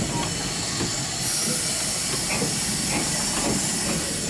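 BR Standard Class 4MT steam tank locomotive hissing steam over a low rumble; the hiss gets louder and brighter about a second in.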